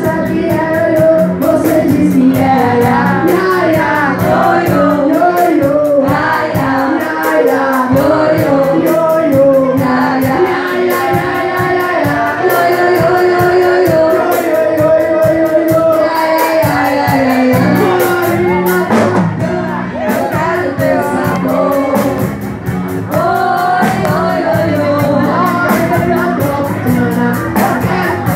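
Live band playing with a singing voice over it: electric guitars, drum kit and congas keep a steady beat.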